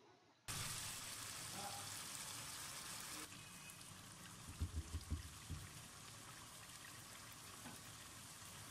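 Chicken pieces sizzling in oil in a pot, a faint steady hiss that drops a little about three seconds in, with a few soft low knocks about halfway through.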